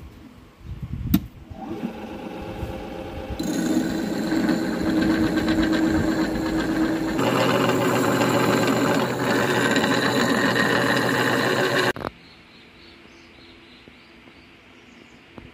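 Electric motors of workshop machines running with a steady hum, first the wood lathe with a log mounted, then the sharpening grinder, the sound changing abruptly about seven seconds in. A knock about a second in, and the hum cuts off suddenly near the end.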